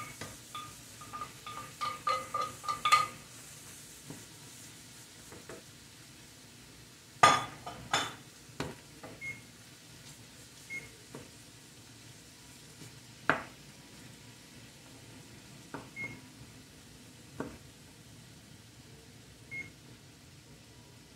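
Ground beef being scraped out of a glass dish into a frying pan with a wooden spoon: a quick run of ringing taps on the glass in the first few seconds. Then scattered knocks of the spoon against the pan as the meat is stirred, over a faint sizzle.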